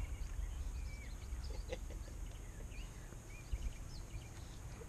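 Small birds calling: scattered short chirps and little whistled glides, over a low steady rumble.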